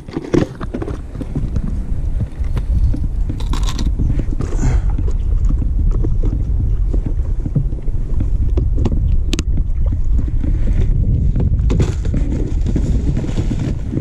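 Wind buffeting the kayak-mounted camera's microphone, a steady low rumble, with scattered clicks and rattles from a clear plastic tackle box being handled.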